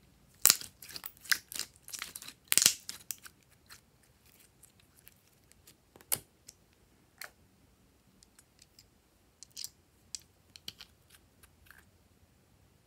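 Hands squeezing and pulling apart red slime: a quick run of sticky crackles and pops in the first three seconds, then scattered small clicks and taps.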